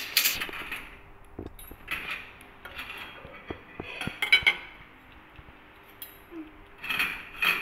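Metal spoon and cutlery clinking and knocking against plates and bowls at a meal, in scattered short strikes, the loudest a little past four seconds in.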